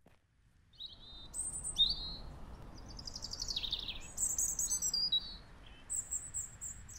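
A songbird singing a run of varied high phrases (quick sweeps, trills and short whistles) that starts about a second in, over a steady low background rumble.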